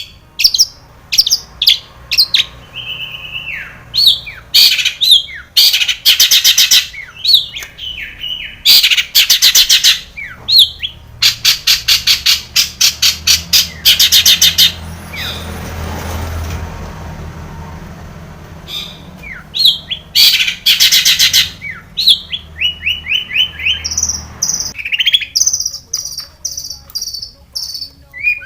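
Long-tailed shrike (cendet) singing hard: rapid harsh chattering runs and fast repeated notes mixed with mimicked calls of other birds. The song eases off for a few seconds in the middle over a faint low hum, then picks up again with a run of short down-sliding notes near the end.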